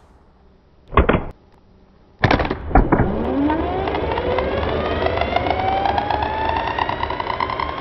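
See-through starter motor from a Kohler diesel, running free on the bench: a brief burst about a second in, then a few sharp clicks as power is connected, and the motor spins up with a whine that climbs steadily in pitch.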